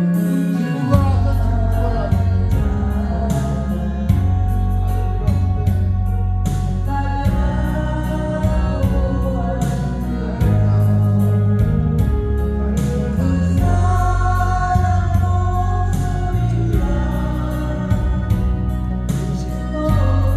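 An amateur singer singing over a karaoke-style backing track with a steady beat and bass.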